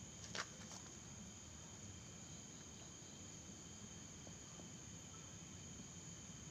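Faint, steady high-pitched chirring of crickets, with one short sharp click about half a second in.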